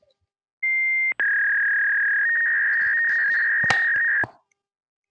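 Steady electronic beep tones: a short higher tone, then a lower tone held for about three seconds with a few clicks near the end, cutting off suddenly.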